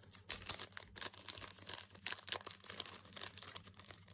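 Plastic packaging crinkling and rustling in the hands, a dense run of irregular crackles.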